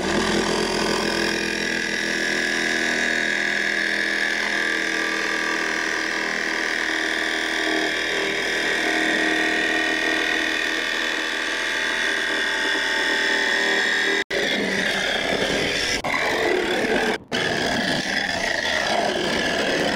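Parkside cordless jigsaw sawing through the van's sheet-steel roof panel, its blade running steadily under load. Two very short breaks come about two-thirds of the way through and a few seconds later.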